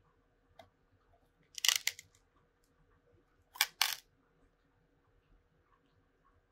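A short rattle of hard clicks about a second and a half in, then two sharp clicks about two seconds later: small hard objects being handled.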